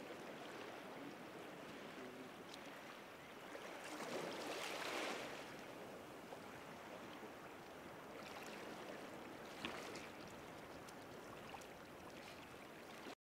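Shallow seawater lapping and splashing, swelling louder about four seconds in, with a sharp tick near the end before the sound cuts off suddenly.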